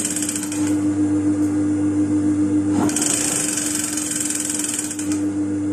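Juki industrial sewing machine stitching in two runs: a short one at the start and a longer one from about three seconds in to about five seconds. Its motor hums steadily between the runs.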